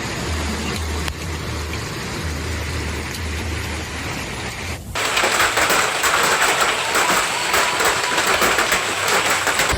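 Hail pelting down as a steady noise of falling ice, then, about five seconds in, an abrupt change to a louder, denser clatter of hailstones striking hard surfaces in rapid, many overlapping impacts.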